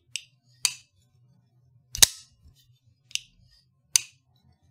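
Christiansen Knifeworks Maverick-S folding knife being flicked open and shut by hand, its blade snapping into lock and releasing in five sharp metallic clicks. The loudest snaps come about two seconds in and near four seconds.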